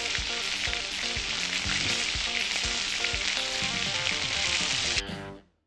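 Steak searing in hot oil in a cast iron pan: a steady, dense sizzle and spatter that cuts off about five seconds in.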